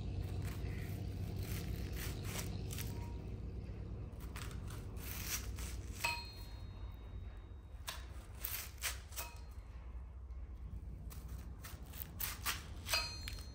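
Knife slicing through a red onion, cut after cut. Each stroke gives a short crisp crunch, and a few end in a brief metallic click as the blade meets the steel plate beneath. The cuts come irregularly and bunch up near the end.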